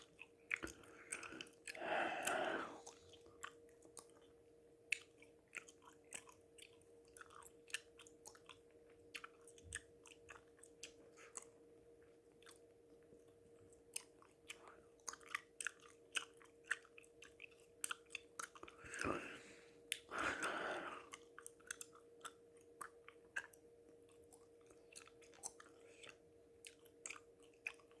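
Close-miked gum chewing: a steady run of short wet mouth clicks and smacks. Heavy breaths stand out above the chewing, one about two seconds in and two together about two-thirds of the way through. A faint steady hum runs underneath.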